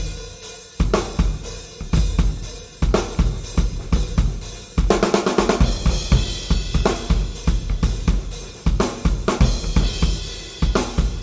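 Acoustic drum kit played: a Yamaha 9000 Recording Custom kit's bass drum and toms, a Ludwig Supraphonic snare and Paiste 505 cymbals and hi-hats, picked up by a Yamaha EAD10 kick-drum mic. It plays a busy pattern with crash accents every second or two, the heaviest about five seconds in.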